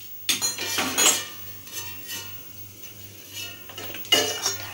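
Stainless steel plate (thali) clanking and ringing as it is handled and set on the counter, with sharp metallic knocks about a third of a second in, about a second in, and again near the end.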